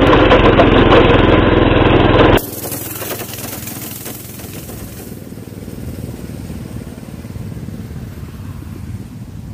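IZh motorcycle running on its cultivator engine, loud and close from the rider's seat. About two seconds in the sound drops sharply to the same motorcycle heard from behind, riding away and slowly fading.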